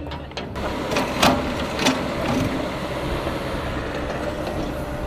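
Excavator engine running steadily while it is worked. A few sharp knocks sound about one and two seconds in.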